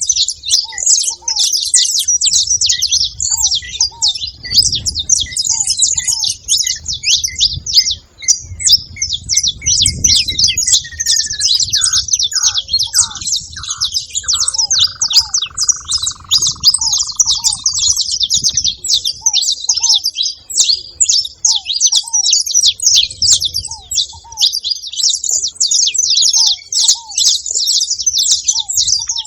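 Flock of saffron finches chirping and chattering without pause, many high calls overlapping. A lower, falling whistle from another bird comes in about halfway through.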